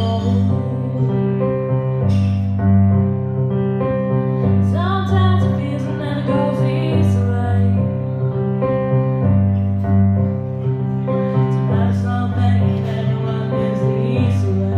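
A woman singing a slow ballad to her own accompaniment on a digital stage piano, which holds sustained chords that change every second or two.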